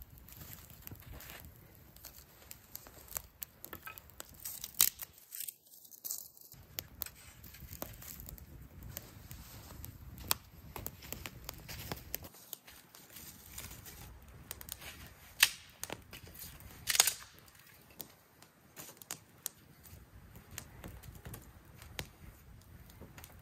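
Small twig-and-stick campfire crackling, with scattered sharp pops, a couple of them louder in the last third.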